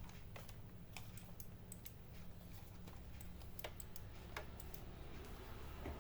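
Scattered light clicks and taps from handling a computer mouse and plugging it into the all-in-one PC, irregular and faint.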